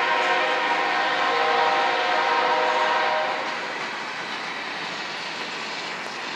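Freight train horn sounding a long, steady multi-note chord that cuts off about three seconds in. Under it and after it is the steady rolling noise of freight cars passing on the track.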